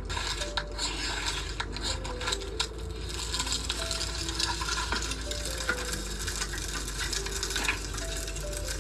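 Steak frying in a pan: a steady sizzle that grows denser about three seconds in, with scattered clicks and scrapes of a utensil against the pan.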